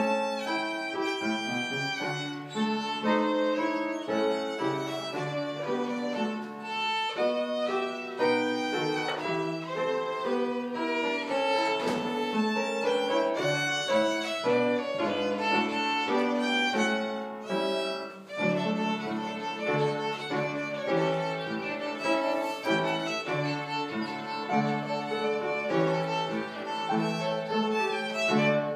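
Violin played with the bow: a melody of many short notes, with a brief drop in loudness about 18 seconds in.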